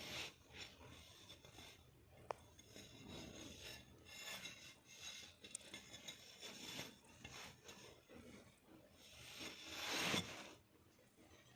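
Faint, irregular rubbing and scraping handling noises, with one sharp small click about two seconds in and a louder rub near the end.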